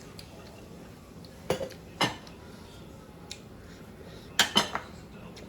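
Cutlery clinking against dinner plates: two sharp clinks around a second and a half and two seconds in, then a quick cluster of three near the end.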